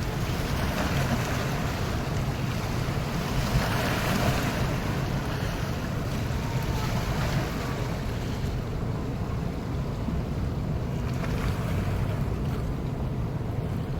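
Ocean surf washing on the shore, with wind rumbling on the microphone. The hiss of the water dies down about eight seconds in.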